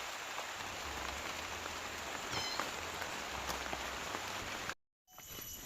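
Steady rain falling, an even hiss with a short high chirp about halfway through. The rain cuts off abruptly near the end, giving way to a quieter background with faint high tones.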